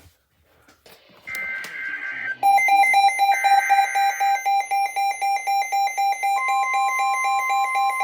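NOAA Weather Radio alert coming in: two short bursts of warbling SAME data tones, then a weather radio's alarm sounding a rapid pulsing beep. About six seconds in, the broadcast's steady 1050 Hz warning tone joins it. Together these signal that a new weather warning is about to be read.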